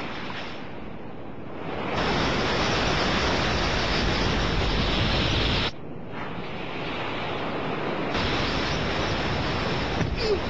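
Ocean surf: a steady rush of breaking waves whose level jumps abruptly up and down a few times.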